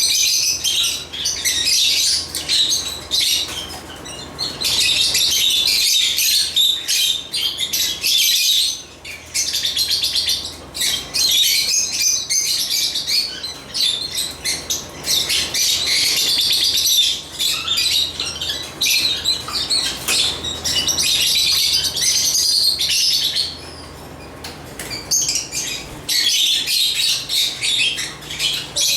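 African lovebirds (Agapornis) chattering in a dense, rapid stream of shrill chirps and squawks, with a short lull about three-quarters of the way through.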